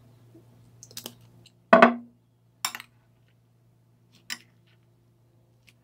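A few separate hard knocks and clinks, the loudest a little under two seconds in: a glass hot-sauce bottle being set down on the countertop and a metal spoon knocking against a glass mixing bowl while stirring.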